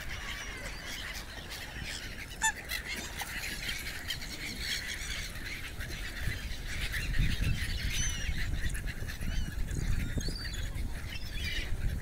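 A flock of waterbirds calling, many short cries overlapping without pause. A low rumbling noise joins in about seven seconds in.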